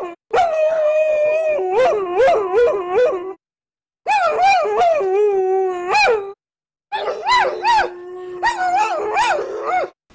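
A dog howling in three long phrases with short breaks between them, the pitch sliding and wavering up and down.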